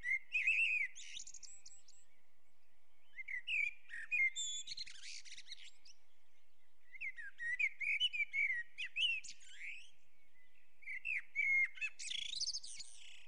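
Small songbirds chirping and twittering in four bursts with short pauses between. The birdsong starts and stops abruptly.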